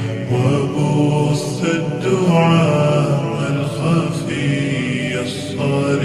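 Background vocal music: a chanted Arabic devotional song (nasheed), with sung lines held and bending in pitch.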